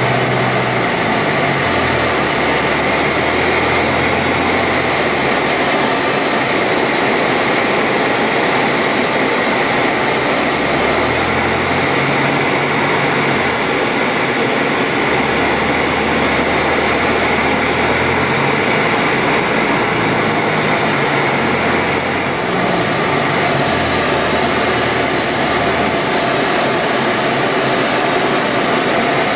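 Mudry CAP 10B's four-cylinder Lycoming engine and propeller heard from inside the cockpit: a loud, steady drone mixed with airflow noise, its low note shifting slightly a few times.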